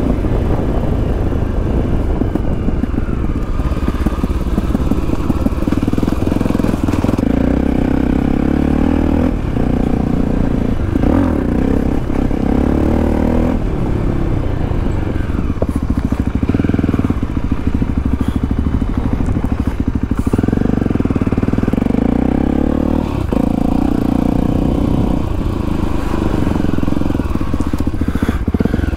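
A Voge 300 Rally's single-cylinder engine running under way, its pitch rising and falling several times as the rider accelerates and changes gear.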